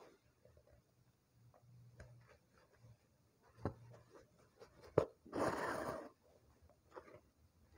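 Satin embroidery ribbon drawn through fabric stretched in a wooden hoop: one scratchy swish of under a second, about two-thirds of the way in. Before it come a couple of small clicks and faint handling rustle.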